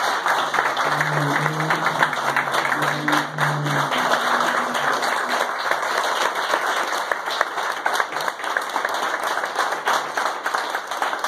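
A roomful of people clapping in a long, steady round of applause, with low music notes heard under it for the first few seconds.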